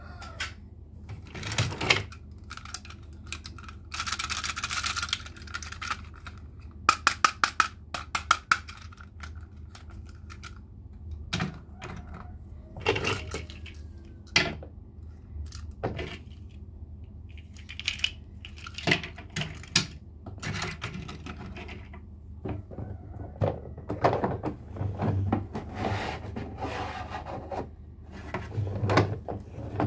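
Hard toys being handled, giving scattered knocks and clatters with a quick run of about eight sharp clicks around seven seconds in, over a steady low hum.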